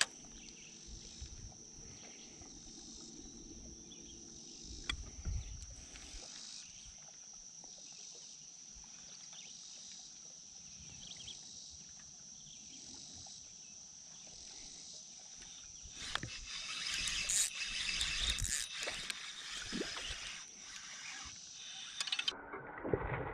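Steady high-pitched insect chorus drone. Near the end comes a louder stretch of rustling noise with clicks, cut off suddenly.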